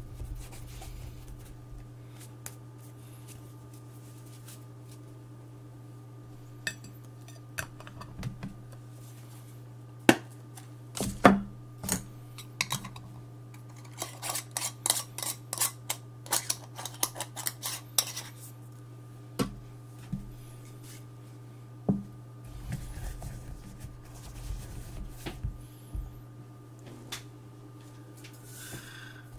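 Small hard objects being handled and set down: scattered clicks and knocks, with a quick run of small clicks about halfway through, over a steady low hum.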